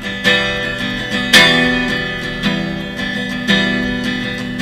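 Acoustic guitar strummed, one chord stroke about every second, each left ringing until the next; the loudest stroke comes about a second in.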